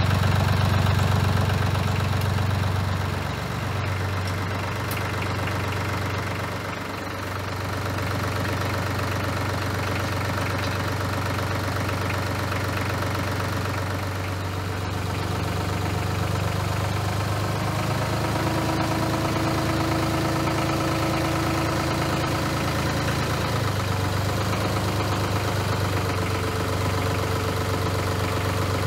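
Bad Boy 4035h compact diesel tractor engine running steadily, driving a PTO stump grinder. The engine note sags briefly twice in the first several seconds. A faint higher whine joins it for a few seconds past the middle.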